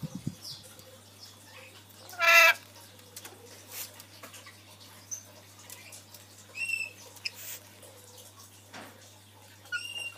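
Rainbow lorikeet calling: one loud call of about half a second, about two seconds in, then a few short, higher-pitched chirps around the middle and near the end, with scattered light clicks between them.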